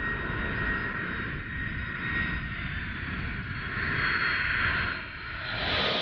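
Boeing 777 jet airliner taking off at full thrust: a steady low rumble of jet engines with a thin high whine over it. The sound shifts slightly after about five seconds.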